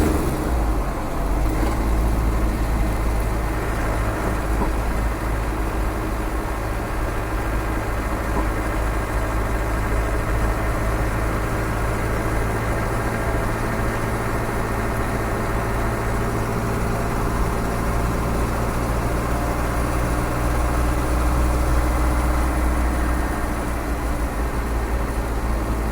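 Land Rover's freshly rebuilt 300Tdi four-cylinder turbo-diesel running on a road test, with a steady low drone of engine and road noise as the vehicle drives along.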